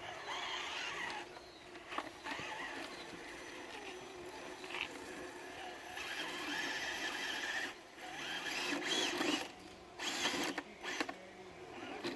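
Electric motor and geared drivetrain of a radio-controlled scale crawler truck whining under throttle, the pitch wavering as the driver works it. It comes in louder bursts in the last few seconds.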